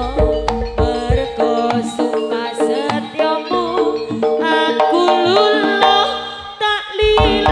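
Jaranan gamelan music played live through a sound system: hand drums and ringing struck metal notes over stretches of deep bass, with a melody line that bends in pitch partway through.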